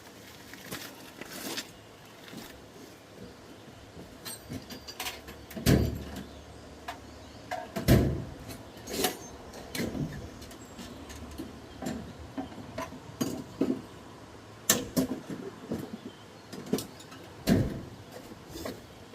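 Irregular clicks and knocks of hand tools working at a cotter pin in a riding mower's deck cable linkage, with heavier thumps about six and eight seconds in.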